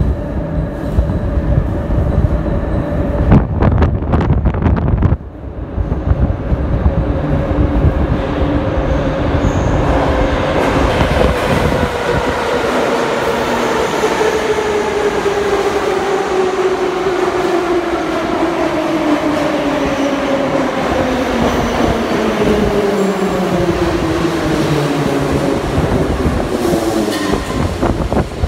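An 81-717.5/714.5 metro train pulls into the platform. A rumble and a run of clicks come early as it approaches, then a whine falls steadily in pitch as the train slows nearly to a stop.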